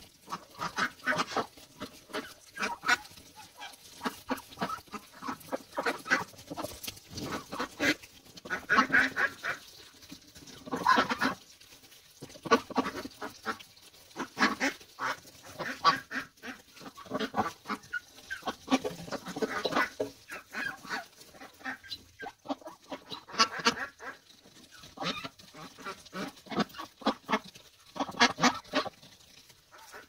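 Domestic ducks feeding on grain off the ground. Short quacking calls come in clusters, and a steady run of quick clicks and pecks of bills on the dirt sounds throughout.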